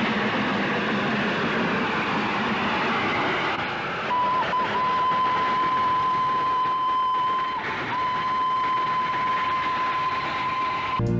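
Darjeeling Himalayan Railway train running, a steady noisy rush. About four seconds in, a thin steady high tone joins it and holds, broken briefly twice.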